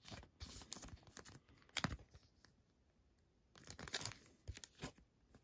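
Thin clear plastic card sleeve crinkling and rustling as a trading card is slid into it by hand, in scattered short bursts with a quiet pause in the middle.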